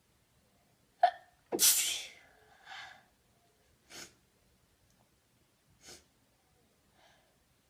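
A woman sneezing once, loudly: a short voiced catch of breath about a second in, then the sneeze itself, a sharp burst that fades over about half a second. A weaker voiced sound follows, then three short breaths. The sneeze is an induced one.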